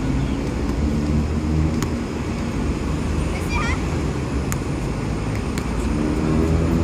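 Steady low rumble of outdoor urban traffic noise, with a few sharp taps scattered through it and a short voice near the end.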